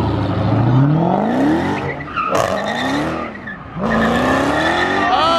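Muscle car engine revved hard about three times, the pitch climbing steeply and dropping back each time, with tire squeal and a loud noisy burst about two seconds in.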